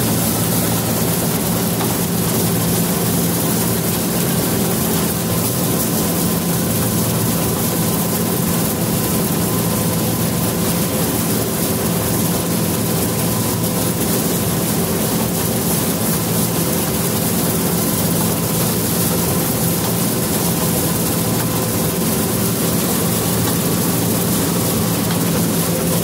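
Combine harvester running steadily while harvesting soybeans, heard from inside the cab: a constant engine and threshing-machinery drone with a few steady hums.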